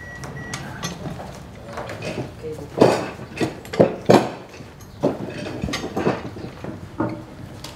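Steel plank clamps knocking and clinking against each other and the wood as they are fitted to an oak hull plank: about six sharp metallic strikes, the loudest a few seconds in.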